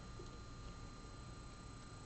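Near silence: steady room tone of low hum and faint hiss.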